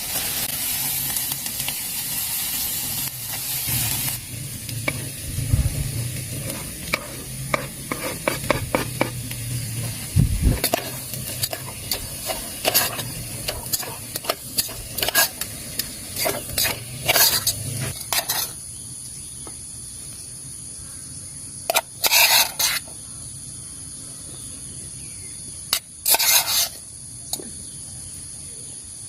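Food sizzling as it fries in a pan, with a utensil clicking and scraping against the pan as it is stirred. About two-thirds of the way through, the sizzling and clicking drop away to a quieter steady hiss, broken by two short loud bursts of noise.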